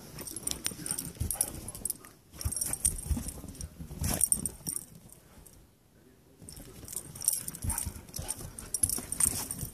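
A dog romping in crusted snow: irregular crunching and scuffing as its paws and snout push through the snow. There are three spells of this, with a lull of about a second and a half in the middle.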